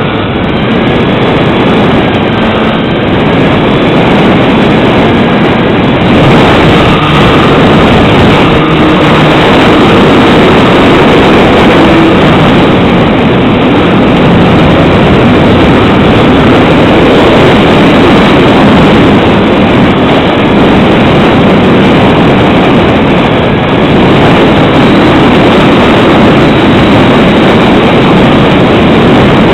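Strong wind buffeting the microphone: a loud, steady rush of noise with no let-up.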